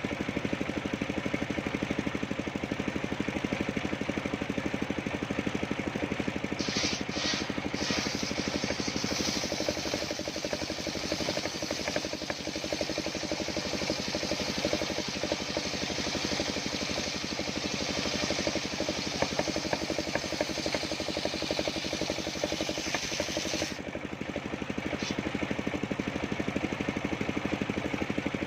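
Engine driving a homemade circular sawmill runs steadily throughout. From about seven seconds in until near the end, a high, hissing cutting sound joins it as the blade saws through old coconut-palm wood, then stops.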